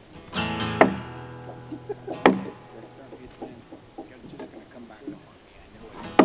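Wooden knocks and a creak as heavy hewn logs are shifted and settled into their notches: a creak with a knock about half a second in, another knock about two seconds in, and a sharp wooden mallet blow on a log near the end, the loudest sound. Insects trill steadily behind it.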